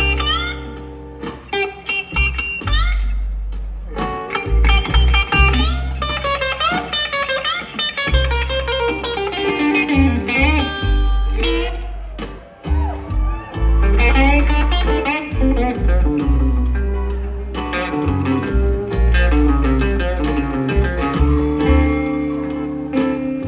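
Live blues band playing: a hollow-body electric guitar takes a lead with string bends, over upright bass notes and acoustic guitars.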